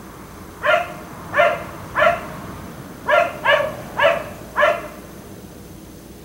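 Black Labrador barking: seven barks, three spaced out and then four in quicker succession, from a dog left outside barking on and on.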